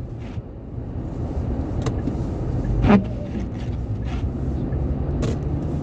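Car cabin noise while driving: a steady low rumble of engine and road that grows a little louder, with a few faint clicks and one sharper knock about three seconds in.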